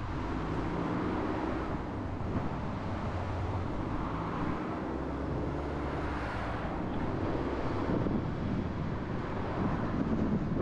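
Car driving along a street: steady engine and road noise, with wind rushing over the microphone.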